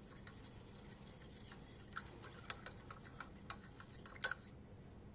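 Stirring rod clinking lightly against the inside of a glass beaker while a solution is stirred to dissolve it, a few scattered light clicks starting about two seconds in, the sharpest one just past four seconds.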